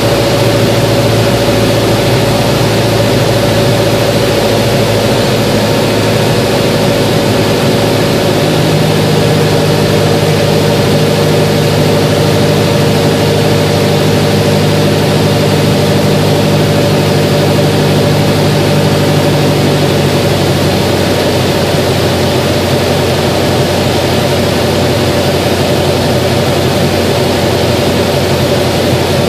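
Grumman American AA-1B Yankee's Lycoming O-235 four-cylinder engine and propeller running steadily on a landing approach, heard inside the cockpit. Its tone changes about a third of the way through and again about two-thirds through.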